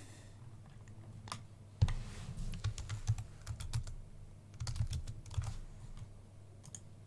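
Typing on a computer keyboard: a couple of separate key clicks, then two short runs of quick keystrokes in the middle.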